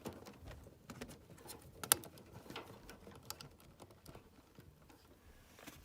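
Scattered light clicks, taps and rustling from hands handling parts, with one sharper click about two seconds in.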